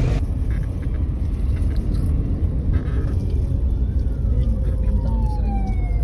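Steady low rumble of a car driving, heard from inside the cabin. From about four seconds in, a siren's wail slowly sweeps down in pitch.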